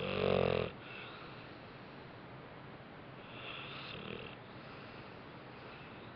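A sleeping dog snoring: one loud snore right at the start, then a softer, airy breath about three to four seconds in.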